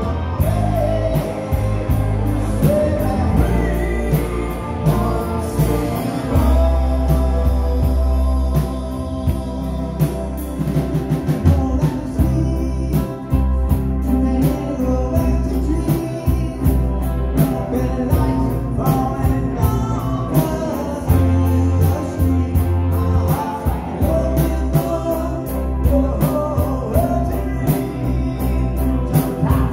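Live band playing amplified through stage speakers: electric guitars and bass over a steady beat, with a singer's lead vocal.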